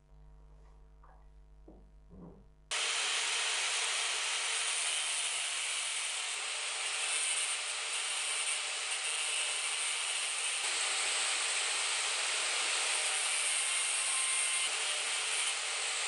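Angle grinder's abrasive disc grinding a small steel part held in a bench vise: a steady, harsh grinding hiss that starts abruptly about three seconds in and cuts off suddenly at the end. Before it, a few light clicks as the part is handled in the vise.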